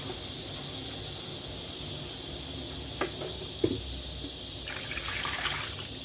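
Water poured over dry couscous grains in a glazed clay dish while a hand stirs and rubs the wet grains, to wash the couscous. There are a couple of light knocks midway, and louder pouring and splashing near the end.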